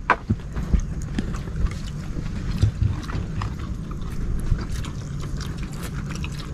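Light clicks and taps of shellfish shells being handled and the meat scooped out of an opened shell, with a sharper click right at the start, over a steady low hum.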